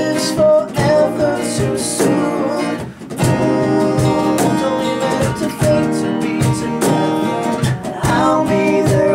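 A man singing over a strummed acoustic guitar, with a short break in the strumming about three seconds in.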